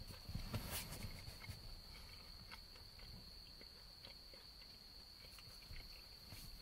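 Quiet scene: a faint, steady high-pitched whine under soft clicks and rustling from someone eating with chopsticks and a small dish, the handling noise heaviest in the first second or so.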